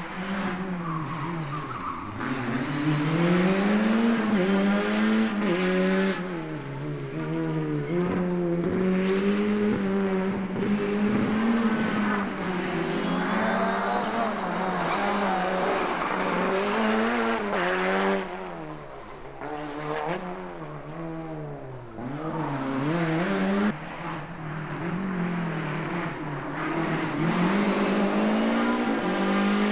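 Rally car engine driven hard on a stage, its note climbing through the revs and dropping again and again as it accelerates, shifts and lifts off, with a brief dip in level about two thirds of the way through.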